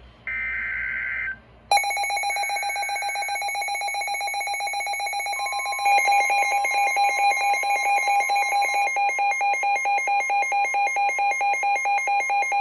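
NOAA Weather Radio alert coming in on two Midland weather radios. A final burst of the SAME digital header, a short two-tone data screech, is followed by the radios' electronic alert alarm, a fast pulsing beep. A louder beeping about three times a second takes over about six seconds in, over a steady broadcast warning tone, signalling a severe thunderstorm warning.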